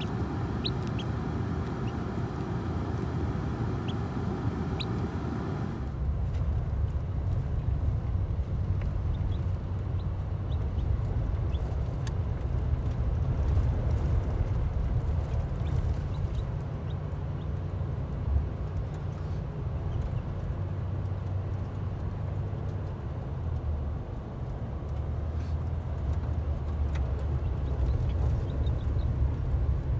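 Newly hatched chicks peeping, short high calls, for the first six seconds or so. After a cut, a car is driving, heard from inside the cabin as a steady low rumble of engine and tyres.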